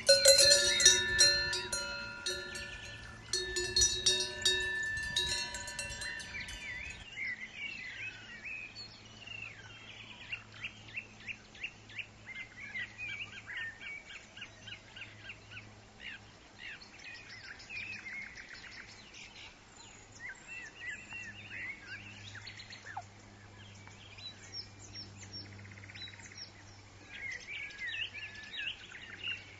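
Metallic bell-like chiming with sharp clanks for the first several seconds. Then the sound changes abruptly to small birds chirping and singing in quick repeated phrases over a low steady hum.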